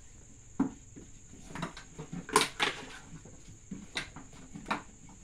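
A clear plastic jar being handled against a brick wall: about half a dozen separate knocks and clicks at irregular intervals, the sharpest a little over two seconds in.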